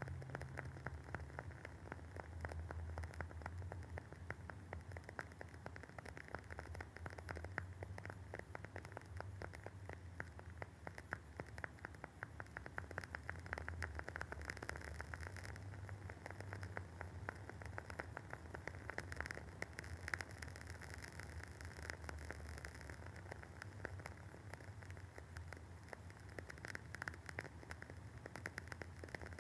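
Wooden wick of a WoodWick candle burning with a soft, steady crackle: many small rapid ticks over a faint hiss.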